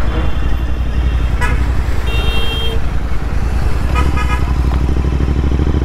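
Royal Enfield Interceptor 650's parallel-twin engine running steadily while riding, with wind noise, as vehicle horns toot several times in the surrounding traffic, the longest about two seconds in.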